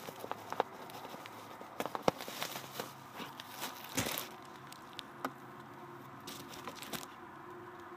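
Rustling and crinkling with scattered small clicks and taps as objects and packaging are handled, one sharper knock about four seconds in.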